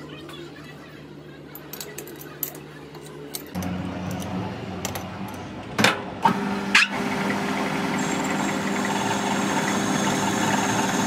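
A machine starts up about a third of the way in and keeps running with a steady hum. Just after the middle come three sharp metallic knocks about half a second apart, and a faint high whine joins later.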